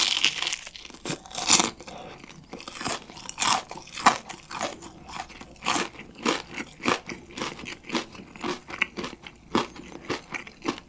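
Close-up crunching and chewing of extra-crispy rice-battered fried chicken (Kyochon Rice Chicken), eaten together with a potato wedge. A big crunchy bite comes at the start, then crisp crunches about twice a second as it is chewed.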